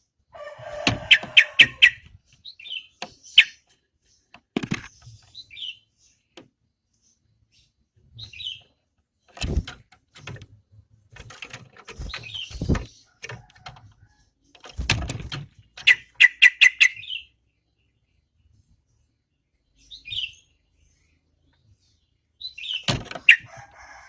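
Yellow-vented bulbul (trucukan) calling in irregular bursts: quick runs of sharp chattering notes, about six a second, alternate with short whistled phrases. A few dull knocks are mixed in, and there are pauses of a second or more between bursts.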